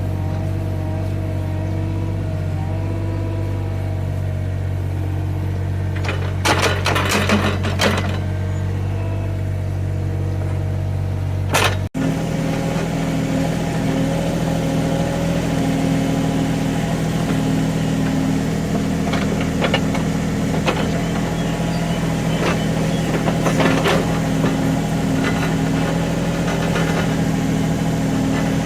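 Small Caterpillar excavator's diesel engine running steadily while it digs, with clanks from the working machine. The engine note jumps higher after a sudden break about twelve seconds in.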